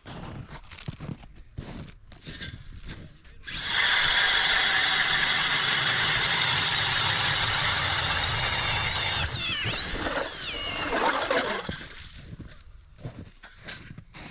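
A power drill motor starts suddenly and runs at a steady high whine for about six seconds, then its pitch swoops down and up for a couple of seconds before it stops.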